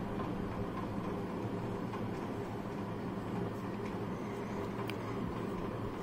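Steady low mechanical hum of room background noise, with a single faint tick about five seconds in.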